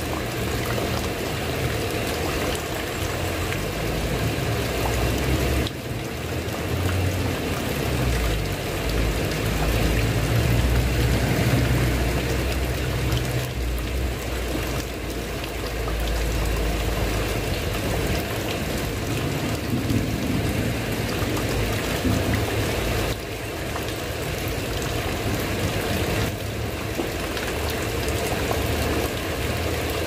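Heavy rain falling steadily and pouring off a roof edge in a continuous wash. A low rumble swells in and out under it around the middle.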